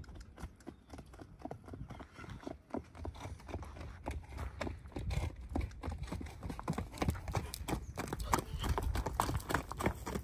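Hoofbeats of a Kathiyawadi horse ridden bareback on a dirt track, a quick run of thuds growing louder as the horse comes close, loudest near the end.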